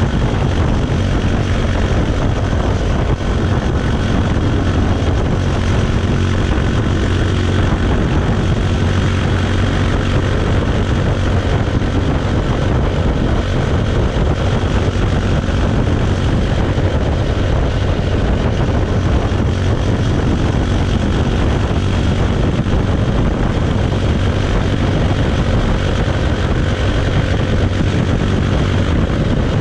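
Bajaj Pulsar 220's single-cylinder engine and exhaust running at a steady, unchanging speed, a loud continuous drone.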